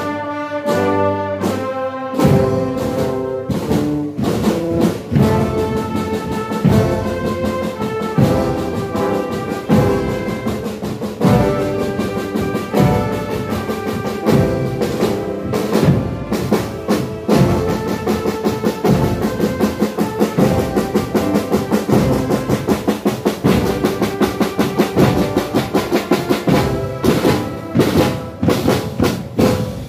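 Brass marching band playing: trumpets, trombones and a sousaphone sounding chords over a steady drum beat.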